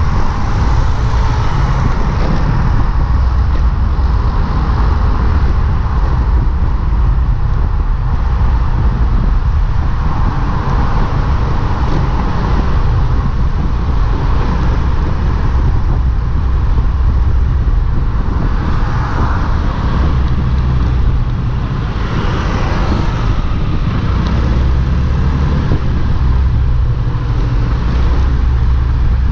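Steady driving noise picked up by a vehicle-mounted camera in city traffic: heavy wind rumble on the microphone with road and engine noise. The noise of nearby traffic swells briefly a couple of times past the middle.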